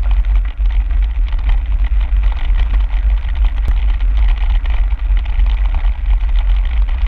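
Wind buffeting the microphone of a camera riding along on a bicycle, a heavy low rumble, over the steady crunch and rattle of bicycle tyres rolling on a gravel trail.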